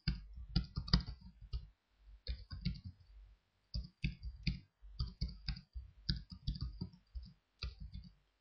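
Computer keyboard keys clicking as someone types, in quick runs of keystrokes with short pauses between them.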